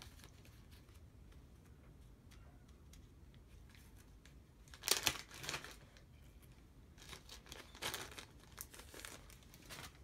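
Plastic zip-lock bag crinkling in short bursts as small parts are handled, loudest about five seconds in and again around eight seconds, after a few quieter seconds of faint clicks.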